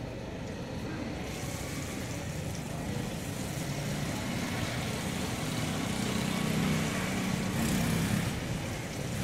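Patties frying on a large flat iron griddle. Liquid spooned from a bowl onto the hot metal sizzles, a hiss that builds about a second in and is loudest near the end. A motor vehicle's engine hums underneath, rising and fading in the middle.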